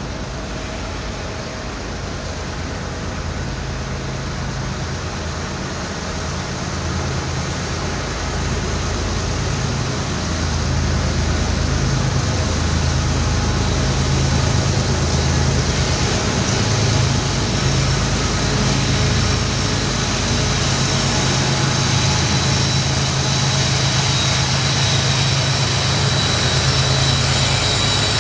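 Norfolk Southern diesel locomotives and train approaching and passing: a low engine drone with a rush of wheel and rail noise that grows louder over the first half and then holds steady.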